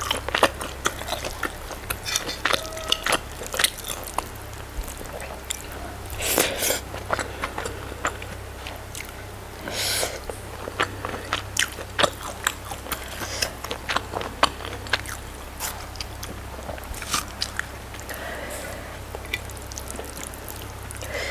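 Close-miked chewing and lip smacking while eating goat satay and rice: irregular wet clicks and smacks, with a few louder bites about six and ten seconds in.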